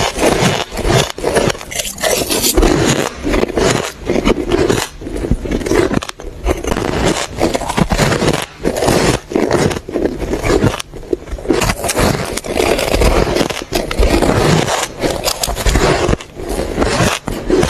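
Close-miked chewing of squeaky white ice: dense, irregular crunching and squeaking as the ice is bitten and ground between the teeth.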